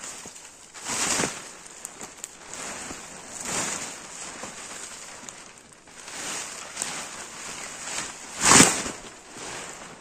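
A large 3x3 m tarp rustling and swishing as it is handled and shaken out, in several separate swooshes, the loudest about eight and a half seconds in as it is flung open over the ground.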